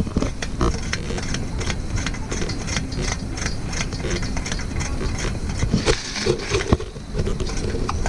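Irregular clicks and light knocks from hands handling a camping lantern's metal base and fuel tank, over a steady background hiss.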